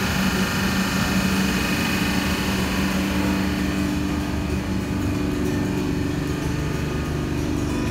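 Steady hum of a suburban electric train standing at a station platform, with a few level tones; one of them rises slightly in pitch about halfway through.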